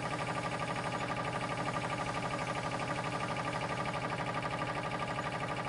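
Car engine idling steadily: an even, rapid pulse over a constant hum.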